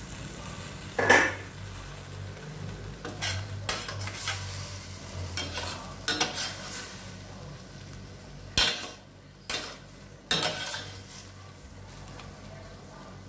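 A metal spoon stirring and turning chicken strips in a stainless steel frying pan, scraping and clinking against the pan several times over a faint sizzle. A louder ringing metal clank comes about a second in.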